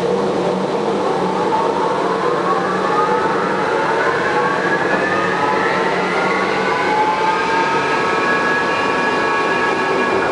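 Bombardier rubber-tyred metro train of the Taipei Wenhu line running, with a whine of several tones rising steadily in pitch as it picks up speed, over a lower hum that fades out past the middle. This train has developed an abnormal running noise.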